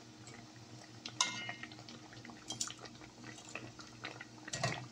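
Breaded chicken patties deep-frying in a pan of oil, crackling and bubbling steadily. Metal tongs clink against the pan a few times, loudest near the end, over a steady low hum.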